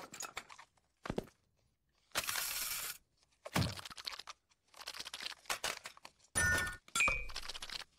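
Cartoon sound effects of small objects dropping one after another onto a hard floor, each landing with its own separate clatter or thud, some eight in all. About two seconds in, one drop makes a longer, noisier sound lasting nearly a second.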